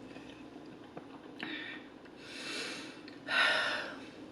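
A person breathing heavily, three noisy breaths in and out, the last and loudest a little past three seconds in.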